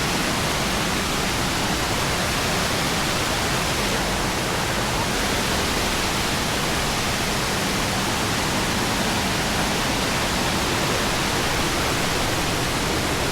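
Steady rushing of water over rocks from a waterfall stream, an even hiss that does not change.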